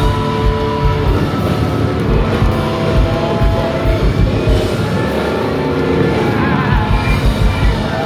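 Live rock band playing through a PA, heard from the audience: electric guitars and bass over a steady drum beat.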